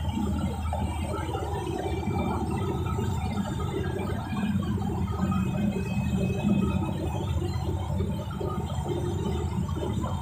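Steady engine and road noise of a moving bus, heard from inside the cabin.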